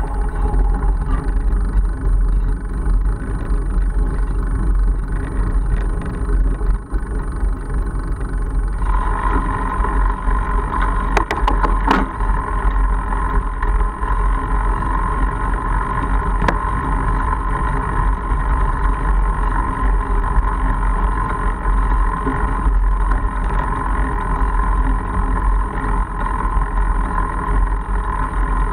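Wind buffeting the microphone of a bike-mounted camera over the rumble of a Mongoose Argus fat bike's tyres rolling on a gravel road. A steady hum joins about a third of the way in, and a few sharp clicks or rattles come near the middle.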